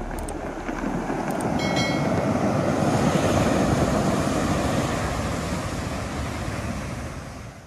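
Sea surf rushing, swelling to a peak midway and fading out near the end.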